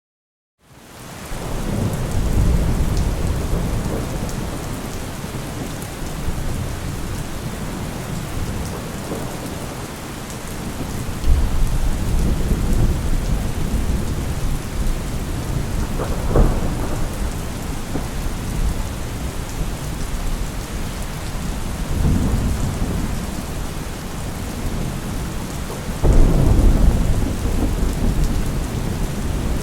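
Thunderstorm: heavy, steady rain fading in from silence within the first second or so, with rolls of thunder rumbling several times, the loudest near the end.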